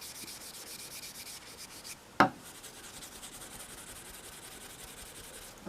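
Superfine steel wool wet with denatured alcohol scrubbing a screwdriver's steel shaft in fast rubbing strokes, with one sharp knock about two seconds in; the rubbing goes on more faintly after it.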